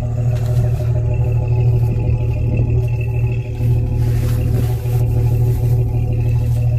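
An engine running steadily with an even low drone.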